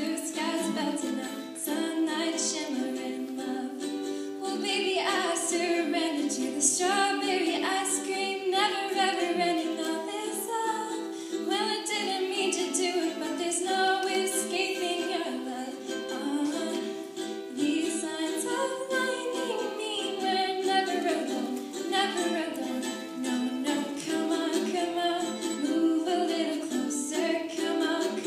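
A woman singing a song live to strummed ukulele accompaniment.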